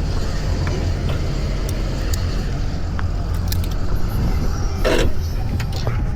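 Parasail boat's engine running with a steady low drone, with scattered light clicks over it and a brief voice about five seconds in.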